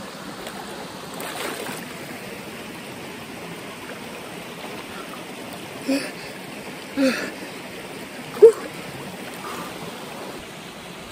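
Stream running steadily over rocks, with three short sharper sounds about a second apart past the middle, the last the loudest.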